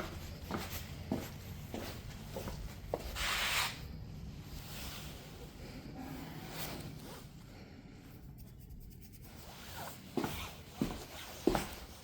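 Handling noises: scattered light knocks and rubbing, with a short hiss about three seconds in and a few sharper knocks near the end.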